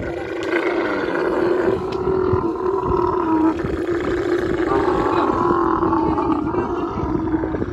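Dromedary camel bellowing: a long, rough call held at a steady pitch, with brief dips before it carries on.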